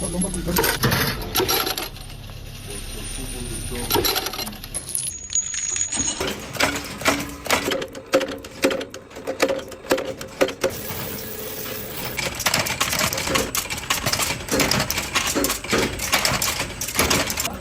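Rapid metallic clinks and taps from workshop metalwork, with a change of sound about five seconds in.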